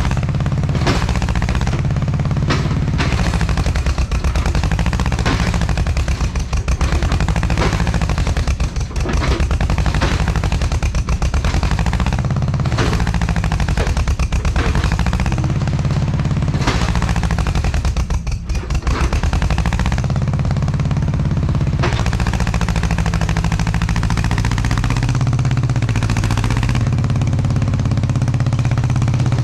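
Mini excavator's diesel engine running hard, its pitch rising and falling every couple of seconds as the hydraulics load it, with scattered knocks and clatter from the machine at work.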